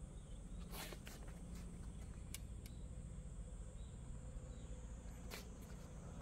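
Faint outdoor background: a steady low rumble and a thin high hiss, broken by a handful of soft, brief ticks and brushes, about eight in all, scattered through it.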